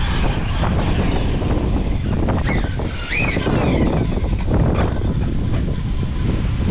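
Wind buffeting the microphone, with an RC car's electric motor whining up and down in pitch as it accelerates and slows, and its tyres knocking over the street surface.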